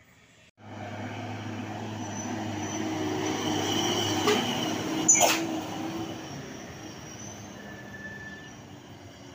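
Loaded cargo truck passing close by: its engine and tyre noise swells, peaks as it goes past with two sharp bangs about a second apart, then fades away.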